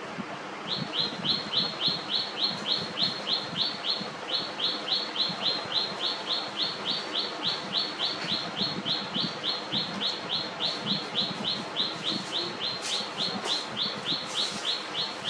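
A bird calling a long, fast, even series of short high chirps, each sliding slightly down in pitch, about three or four a second, with a brief break about four seconds in.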